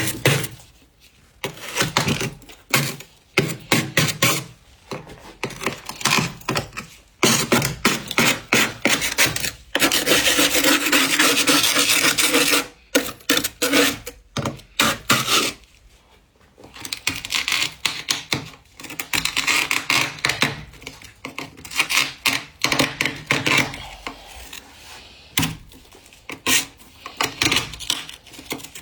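Freezer frost, built up thick with a humidifier, being scraped with a scraper: repeated short rasping strokes, with a longer continuous scrape about ten seconds in and another near twenty seconds.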